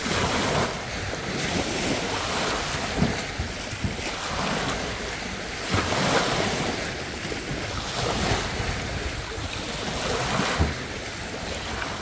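Small waves breaking and washing up a sandy beach, the surf rising and falling in surges every couple of seconds, with occasional low gusts of wind on the microphone.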